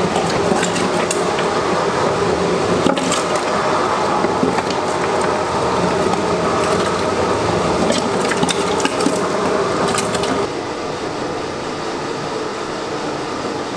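Large electric meat grinder running under load, mincing chunks of raw pork and beef, with a steady mechanical hum and frequent sharp clicks. About ten seconds in the sound becomes quieter and duller.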